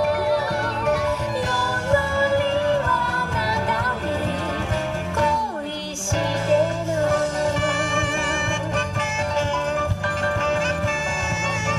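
Dance song: a singing voice over a steady bass beat, with the low end dropping out briefly about halfway through.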